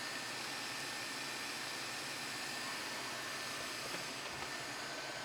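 Eufy E25 robot vacuum running on its mapping run: a steady, very quiet hum of its suction fan with a faint high whine.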